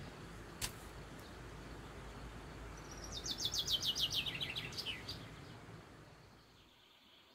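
A songbird singing one song of quick notes that fall in pitch and speed up, lasting about two seconds a few seconds in, over a steady background rush. A single sharp click sounds near the start.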